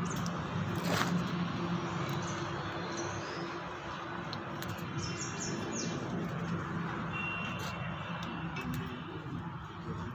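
Birds chirping over a steady low background hum, with a quick run of about four short high notes about five seconds in and a thin held high note a couple of seconds later.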